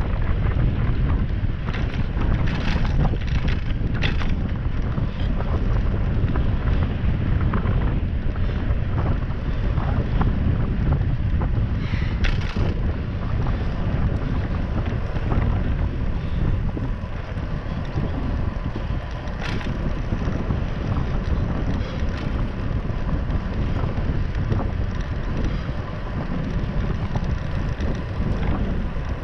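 Wind buffeting a GoPro Hero 7's microphone while cycling on a paved road: a steady low rumble, with a few brief clicks.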